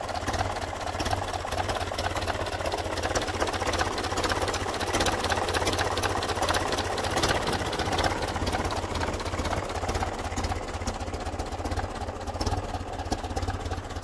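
Ford Model A four-cylinder flathead engine in a homemade tractor, idling steadily.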